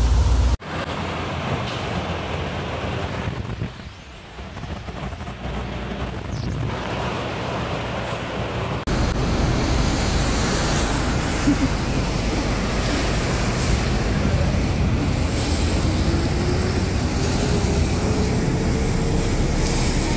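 Vehicles driving through flooded streets: engine noise and the rush and splash of water thrown up by the tyres, changing abruptly twice where short phone clips are cut together.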